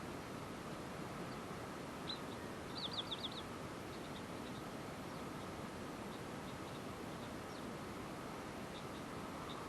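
Small wild birds chirping: one short high chirp about two seconds in, then a quick run of about six falling notes, with faint scattered chirps over a steady background hiss.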